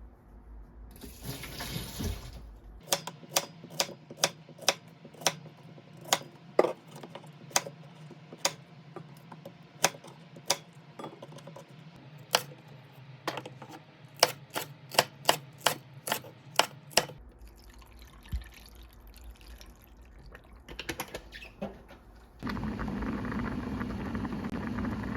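A run of sharp knocks or clicks, irregular at one or two a second, over a steady low hum. They stop after about seventeen seconds. Near the end, water runs steadily from a tap.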